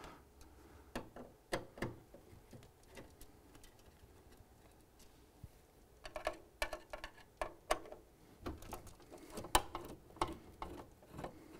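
A Phillips screwdriver loosening screws in the stainless steel back panel of a Quick Mill Pathfinder espresso machine: irregular light clicks and ticks of the tool in the screw heads and against the metal. The clicks are sparse at first and come thickly from about six seconds in.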